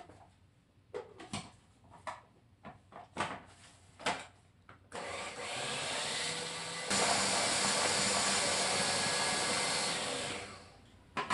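Countertop food processor motor running as it blends banana puto batter: it starts about five seconds in, steps up to a louder, higher speed about two seconds later, and winds down near the end. Before it, a few light knocks and clicks of the machine being handled.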